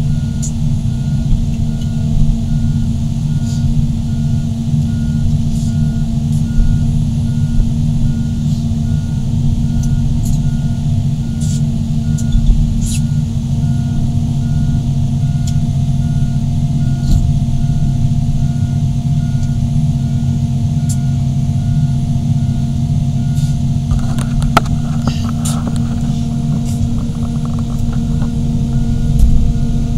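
Heavy diesel engines of large excavators running steadily under load, with a travel alarm beeping in a steady repeating pattern. A short burst of metallic clanking comes near the end.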